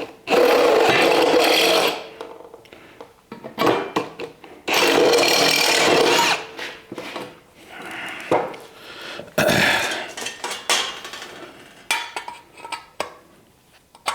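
Electric drill boring out a hole in 16-gauge sheet metal: two runs of about a second and a half each, near the start and about five seconds in, and a shorter one near ten seconds, with light metal clinks and knocks between.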